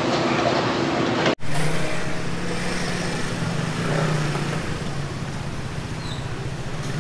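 Night-market street ambience: a steady wash of background noise with a low hum. The sound drops out for an instant about a second and a half in, then carries on with a steadier hum.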